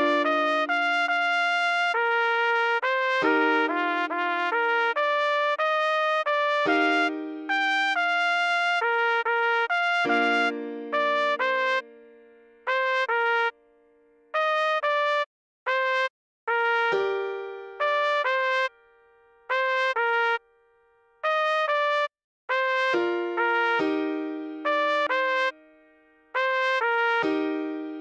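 Trumpet playing a slow melody one note at a time in short phrases, over lower held keyboard chords that fade away beneath it.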